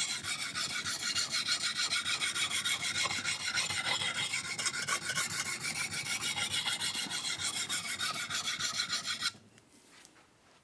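Steel blade being rubbed back and forth on a wet diamond sharpening stone, in quick, even rasping strokes, raising a burr on the second side of the edge. The strokes stop about nine seconds in.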